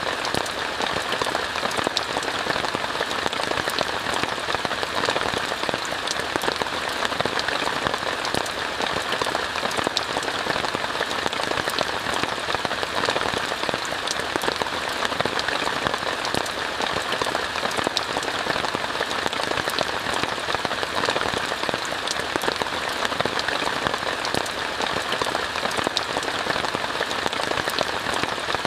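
Steady rain falling on a tent, heard from inside: an even hiss full of fine drop ticks, unchanging throughout.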